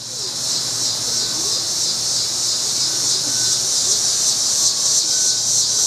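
Outdoor insect chorus, a steady high-pitched shrill drone, with a faint low hum underneath.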